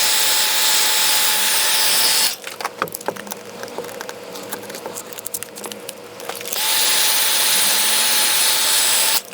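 Heat gun blowing hot air, a steady rushing hiss with a faint whine, running for the first two seconds, stopping, then running again from about six and a half seconds until just before the end; in between, light clicks and scraping. The hot air is softening the adhesive under the phone's back glass.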